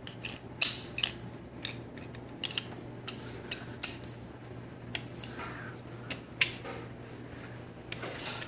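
Baby's toys clicking and clacking in irregular knocks as an infant bats at them, some louder than others.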